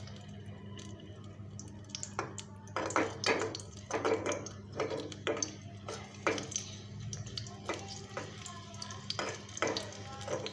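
A spoon stirring and scraping in a small bowl (katori) of mustard oil heating with ajwain, garlic and fenugreek seeds. It gives irregular clinks and scrapes about once a second over a low steady hum.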